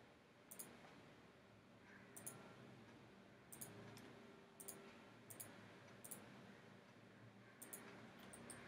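Faint computer mouse clicks, single or in quick pairs about every second, over quiet room tone.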